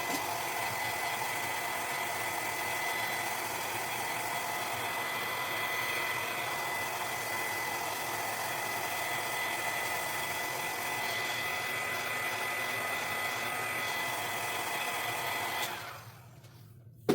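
Hair dryer blowing steadily over wet acrylic paint, with a high, even motor whine. It switches off near the end, followed by a short knock.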